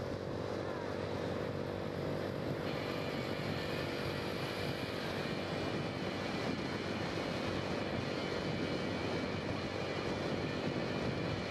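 Steady engine drone and road and wind noise from the motor vehicle carrying the camera alongside the racing cyclists. A higher whine joins the hum about three seconds in.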